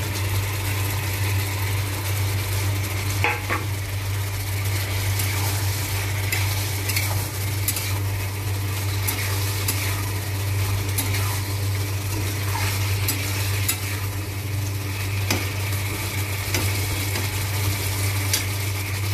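Flat steel spatula stirring and scraping through potato and capsicum curry in a metal kadai on the gas flame, with a light frying sizzle and small clicks of metal on metal. A steady low hum runs underneath.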